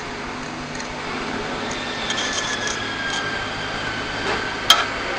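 Steady machine hum and hiss, with a faint whine slowly falling in pitch through the middle and a single sharp click near the end.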